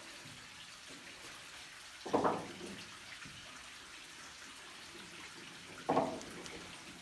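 A person climbing a steep wooden ladder: two short knocks on the rungs, about four seconds apart, over a faint steady hiss.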